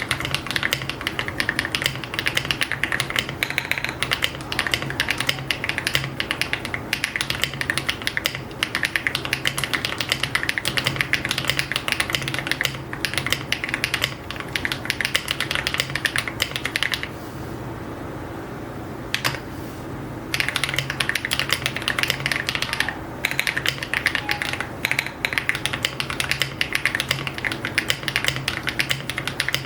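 Steady, fast typing on a 75% mechanical keyboard (EPOMAKER x AULA F75) with pre-lubed HMX Latte linear switches and copper metal keycaps. The stream of keystrokes is dense and continuous, with a brief pause of about three seconds some seventeen seconds in.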